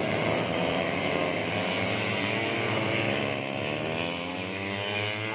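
Several 150cc four-stroke underbone race motorcycles running hard at high revs, their engine notes overlapping and rising and falling in pitch as the bikes pass.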